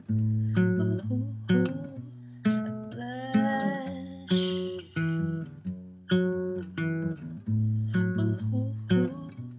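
Nylon-string classical guitar fingerpicked, chords plucked about every second and left to ring and fade. A woman's voice sings a short wordless line over the chords about three seconds in.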